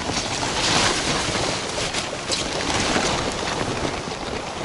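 Steady rush of a small, fast-flowing river's current.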